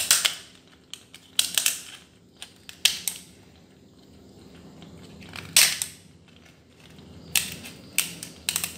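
Raw mud crab being cut apart, its shell and parts giving about seven sharp cracking snips spaced out over several seconds as pieces are trimmed away.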